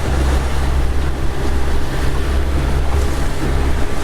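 Boat engine running steadily at trolling speed, a constant low hum, with wind on the microphone and water washing along the hull.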